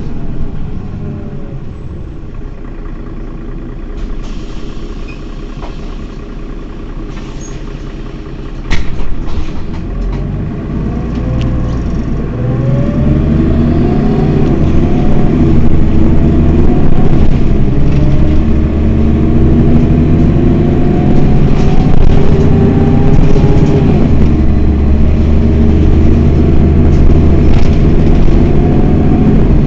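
Mercedes-Benz Citaro city bus's diesel engine running while the bus stands still. There is a sharp clack about nine seconds in. From about twelve seconds the engine note rises and grows louder, then holds a higher, wavering drone.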